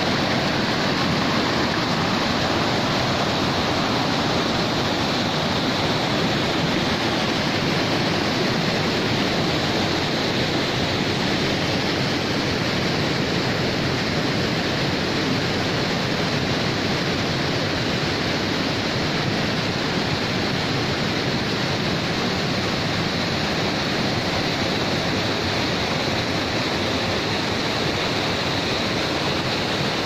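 Rushing white water of a shallow rocky stream cascading over stone steps: a steady, unbroken roar of water.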